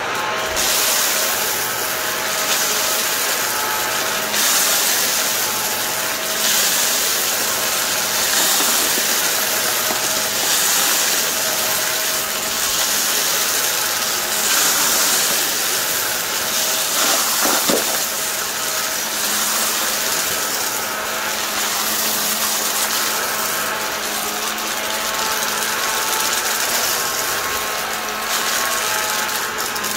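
Vacuum cleaner running continuously, a steady motor hum and airflow hiss that swell and ease every couple of seconds, with a short burst of clicking a little past halfway.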